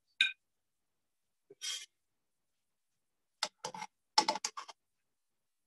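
Metal kitchen tongs clicking against a steel frying pan while lifting a slice of French toast: a couple of brief faint sounds, then two quick runs of sharp clicks in the second half.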